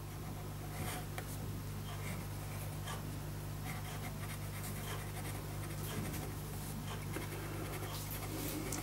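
Ink pen nib scratching across paper in a series of short, loose strokes, over a steady low hum.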